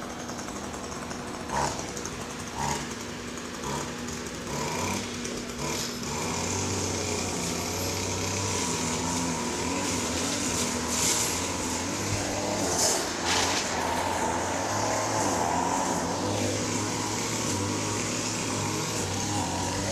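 An engine running steadily, with a few sharp knocks.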